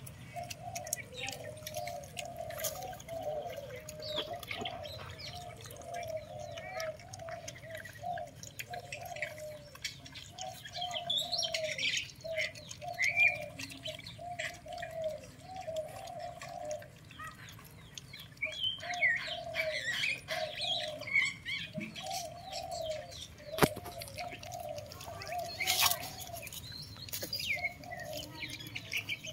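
Puppies whimpering and squealing in a near-continuous run of short arched cries, with bursts of higher, sharper squeaks now and then.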